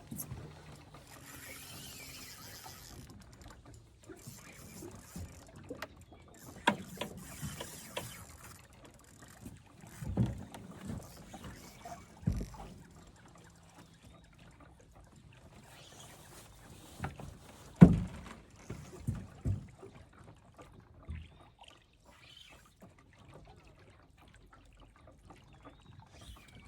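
Scattered knocks and thumps of gear against a fishing boat on a river, with the loudest knock a little before the last third. Short stretches of hiss come over a low, steady background.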